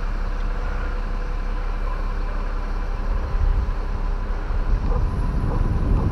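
Aerial lift's engine running steadily as a low rumble, with wind buffeting the microphone, stronger in the second half.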